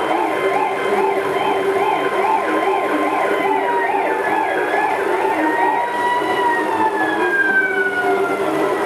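Ambulance siren, a fast warbling yelp of about two cycles a second over a steady wail. The warble stops about six seconds in, and the steady wail then falls in pitch.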